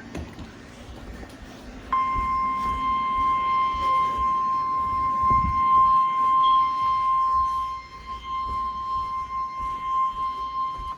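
NOAA Weather Radio warning alarm tone: one steady, high, pure tone that switches on about two seconds in and holds for about nine seconds, after a moment of faint radio hiss. It signals that a warning message is about to be broadcast.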